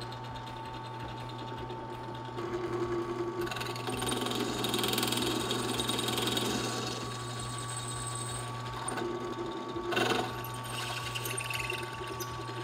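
Ryobi 10-inch benchtop drill press running with a steady motor hum, its bit cutting through a launch-wheel bracket. The cutting gets louder from about two seconds in to about seven seconds in, with a brief louder noise near ten seconds.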